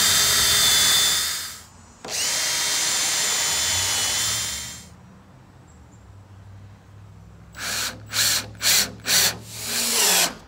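Cordless drill pre-drilling a pilot hole in a wooden trellis rail, running steadily in two runs. Then a second cordless drill drives a deck screw in about five short bursts, the last one winding down.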